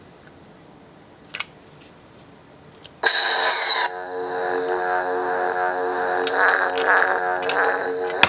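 Lightsaber sound board igniting with a sudden bright burst about three seconds in, then settling into a steady electronic hum with several swells as the blade is swung. The effect is styled after the animated series.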